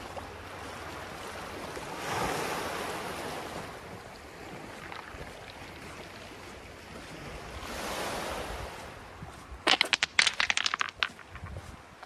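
Small waves washing onto a shingle beach, swelling about two seconds in and again around eight seconds. Near the end comes a short burst of sharp, clattering clicks, the loudest sound.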